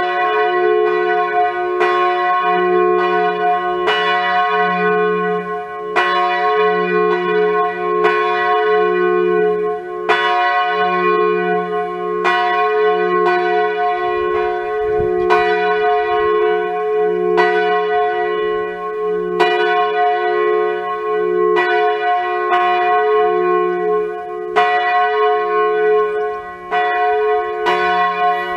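Large bronze church bell, the F-tuned tenor of a five-bell Grassmayr ring, swinging full circle under an electric drive for the Angelus. Its clapper strikes about once a second, and a deep hum carries on between the strokes.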